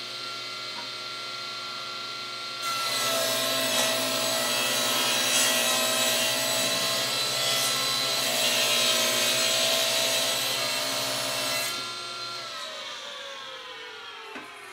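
Table saw running free, then ripping a 1.5-inch spruce 2x4 for about nine seconds, the cutting noise drowning out the motor's steady whine. About twelve seconds in the cut ends, the saw is switched off, and its pitch falls as the blade spins down. A single knock comes near the end.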